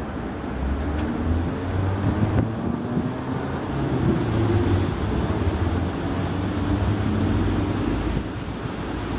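Slow city traffic on a wet street: car and truck engines humming low, with a steady hiss of tyres on wet pavement.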